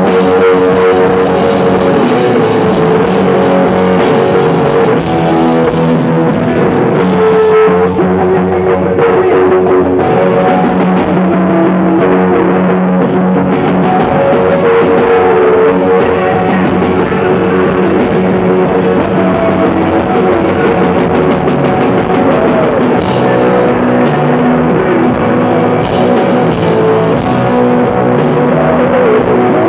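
Live rock band playing loud: a Gibson Firebird electric guitar through Marshall amplifiers over a drum kit.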